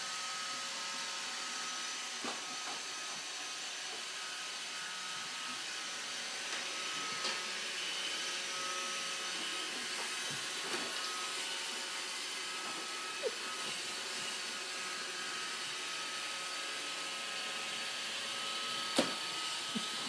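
iRobot Roomba robot vacuum running with a steady whir and a few steady whining tones. A few short light knocks come now and then, the sharpest near the end.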